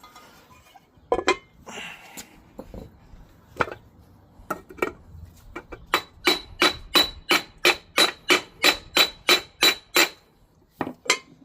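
Hammer strikes driving a front crankshaft seal into a Ford 351 Windsor timing cover, with the seal not yet bottomed out in its bore. A few scattered taps come first, then a steady run of about three strikes a second for some four seconds, each with a high metallic ring, and two last taps near the end.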